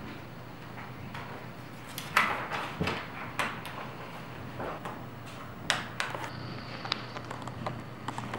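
Scattered light knocks, clicks and rustles from paper sheets and felt-tip markers being handled on a tabletop, over a faint steady low hum.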